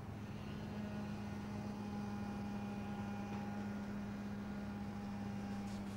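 A steady low machine hum with a few fainter higher tones over a light hiss, stopping at the very end.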